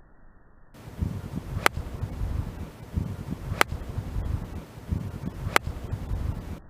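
Three sharp clicks about two seconds apart, over uneven low rumbling noise.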